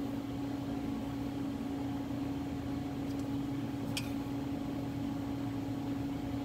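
Steady machine hum with one constant low tone, from the running shop machinery around the CNC lathe. A faint click about three seconds in and a clearer light click about four seconds in.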